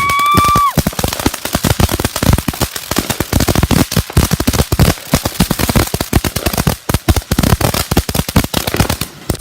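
Consumer fireworks going off in a rapid, continuous string of sharp pops and bangs, many per second, stopping just before the end.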